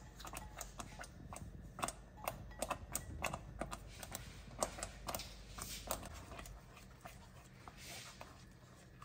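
Light, irregular clicks and crackles of dried fenugreek leaves (kasoori methi) being crushed between the fingers and sprinkled into a pan of sauce, thinning out after about six seconds, then a wooden spatula stirring the sauce near the end.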